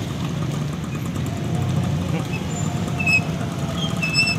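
Road traffic of mostly motorcycles with some cars, engines running steadily as they queue and pass. A few short high chirps sound about three and four seconds in.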